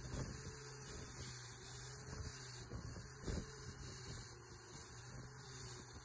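Angle grinder running steadily with a brass wire cup brush spinning freely, a constant motor hum and high whine. Two brief knocks, just after the start and about three seconds in.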